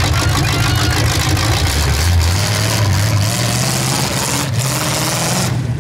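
Demolition derby vehicle's engine running loudly, revving up about two seconds in.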